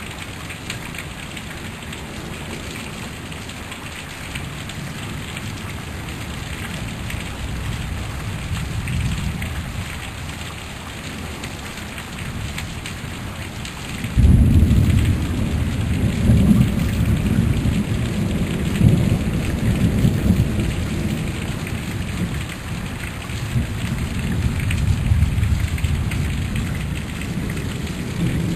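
Heavy rain falling steadily in a thunderstorm. About halfway through, the sound jumps suddenly to a louder, deep rumble that swells and eases several times: thunder rolling under the rain.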